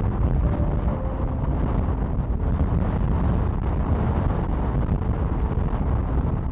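Strong wind buffeting the microphone: a loud, low rumble that surges and eases in gusts.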